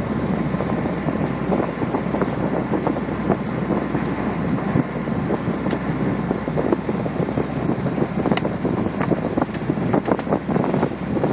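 Wind buffeting the microphone over the steady running of a sailboat's engine, motoring under way at part throttle.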